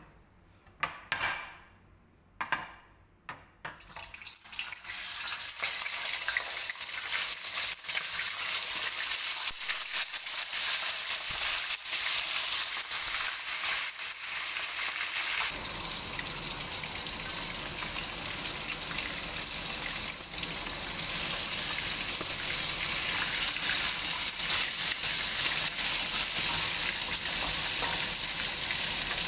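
Whole fish frying in hot oil in a stainless steel wok. A few short sizzles come in the first seconds, then a steady, loud sizzle with crackling from about five seconds in.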